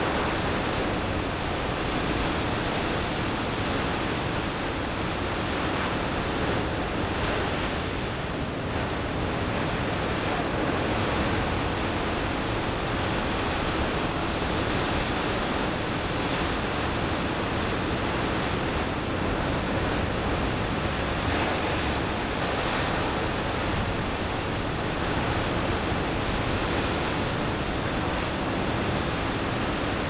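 Ocean surf making a steady, even rushing noise, with no separate wave crashes standing out.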